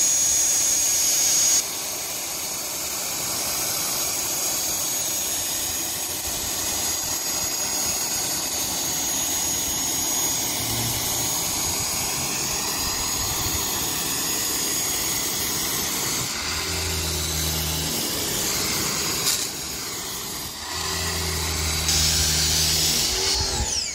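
Pressure washer spraying water through a green-tipped nozzle, rinsing soap foam off a trailer's sheet-metal side: a steady hiss of spray on the panel. A lower hum comes in twice near the end.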